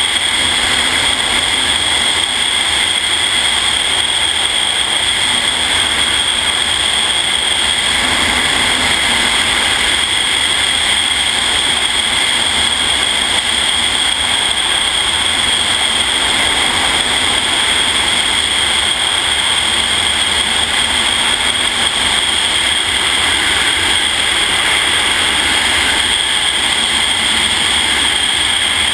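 Freefall wind rushing over a head-mounted camera's microphone, loud and steady with a constant high hiss.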